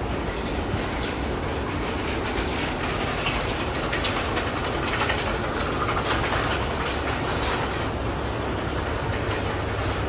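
Steady mechanical din of a back alley lined with window air-conditioner units and ventilation ducts, with scattered clattering between about four and eight seconds in.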